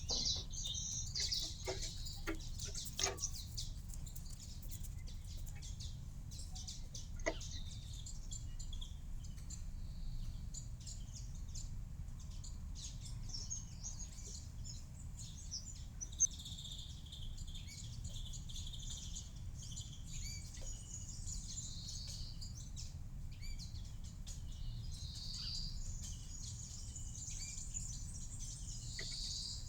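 Small garden birds chirping and twittering, in short high calls that come and go, over a steady low rumble. A few sharp clicks sound in the first few seconds and once more a few seconds later.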